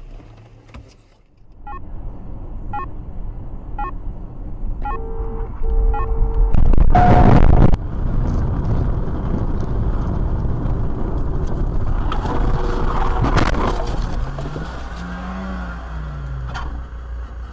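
Road and engine noise inside a moving car, with light evenly spaced ticks and two short horn-like beeps, then a loud sudden crash about seven seconds in, followed by more clattering noise.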